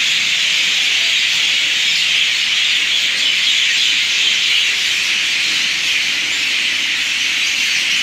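A dense chorus of many birds chirping at once, blending into a steady, loud, hiss-like din.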